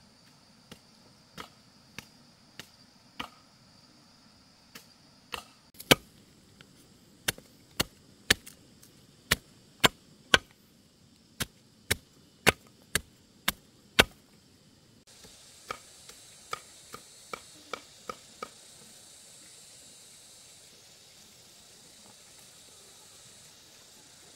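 Chopping: a blade striking something hard in sharp, irregular blows about two a second. After a short pause about halfway, a few lighter strokes come as a steady high hiss starts.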